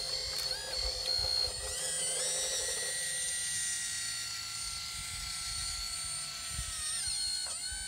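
Hydraulic RC excavator's pump motor whining steadily, its pitch dipping and gliding back up as the boom and cab slew are worked.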